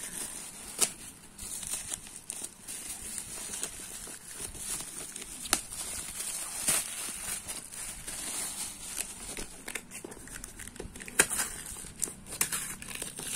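Black plastic mailer bag crinkling and rustling as hands tear it open, with frequent sharp crackles and a few louder snaps; near the end, packing tape is picked and pulled at on a cardboard box.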